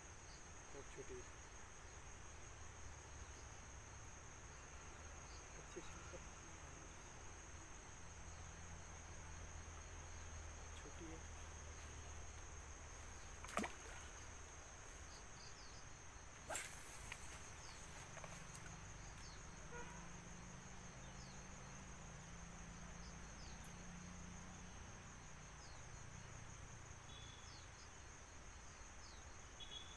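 Steady high-pitched insect drone, with two sharp clicks a few seconds apart near the middle.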